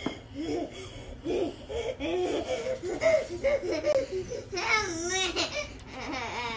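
A young child laughing and babbling in short bursts, with a higher-pitched squealing laugh about five seconds in.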